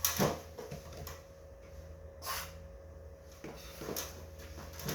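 Short squirts of aerosol lubricant sprayed onto garage door rollers and track. The strongest is a brief hiss about two seconds in, with a few quieter handling noises around it, over a faint steady hum.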